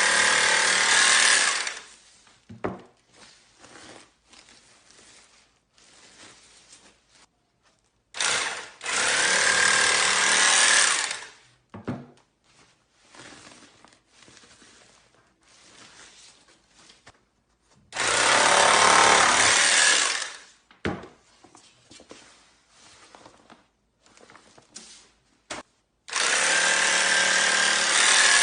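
GK9-350 portable electric bag-closer sewing machine running in four bursts of two to three seconds each as it stitches sacks shut, with quieter clicks and handling sounds between the bursts.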